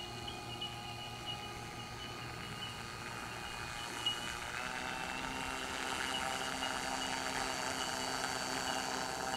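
Radio-controlled Kingfisher seaplane model's pylon-mounted motor running steadily as it taxis on the water. The pitch steps to a new setting about halfway through and the sound grows somewhat louder.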